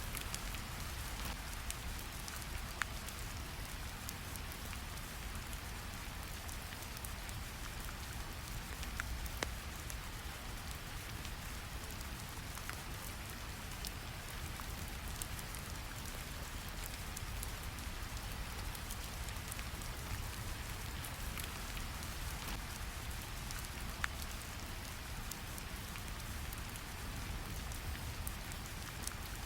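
Steady rain ambience over a low, even brown-noise rumble, with scattered faint sharp clicks.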